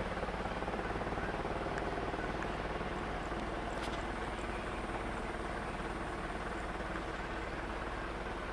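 Airliner cabin noise: the engines run steadily, giving an even rushing drone with several level tones in it, heard from inside the cabin. There is a brief faint click about four seconds in.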